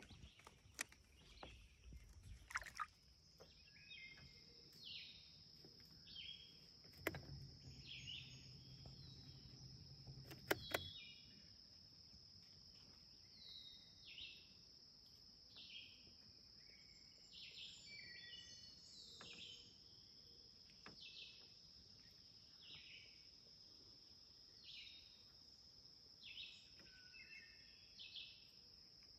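Faint short chirping calls, repeating about every second or two, over a steady high-pitched insect drone. A few clicks and knocks come in the first seconds.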